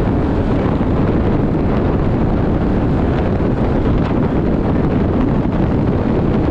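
Wind buffeting the microphone of a Yamaha sport bike cruising at steady highway speed: a constant, heavy low rush with no change in pace.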